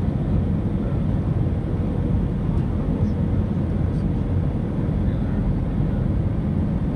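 Steady low rumble of an airliner's jet engines and airflow heard inside the cabin on final approach, with a faint steady hum above it.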